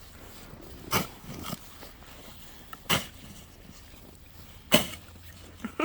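Snow shovel strokes in snow: three short scraping crunches about two seconds apart, the last the loudest.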